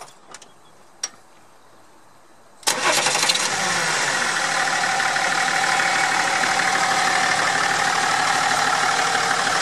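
A BMW M57 3.0-litre straight-six turbodiesel, swapped into a Land Rover Defender, starts about two and a half seconds in after a few faint clicks, then settles into a steady idle.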